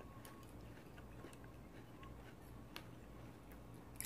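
Faint chewing with a few light clicks of chopsticks, and a sharper click near the end.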